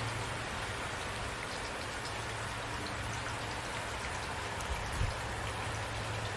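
Steady rain falling on a surface, with scattered individual drop ticks over a steady low hum. There is a brief soft thump about five seconds in.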